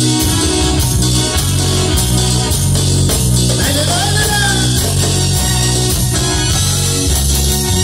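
Live dance-band music playing loud in a hall, with a steady beat and a prominent bass line. A voice sings a short phrase about halfway through.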